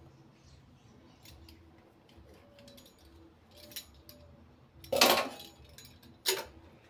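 Kitchen scissors snipping through soft dough, cutting it into small pieces: a few faint snips, then two louder sharp sounds about five and six seconds in.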